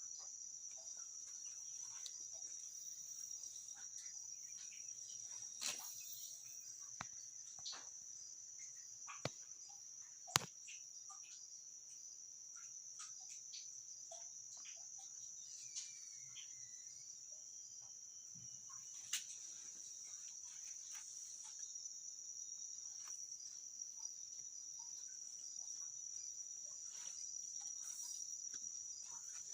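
A steady high-pitched trilling chorus of night insects, crickets, with scattered sharp clicks and knocks, the loudest about ten seconds in.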